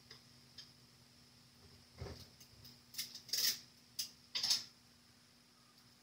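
Quiet room tone with a faint steady hum, broken by a short run of clicks and light clatters: a dull knock about two seconds in, then several sharper clicks and brief clatters, the loudest near the middle and about four and a half seconds in.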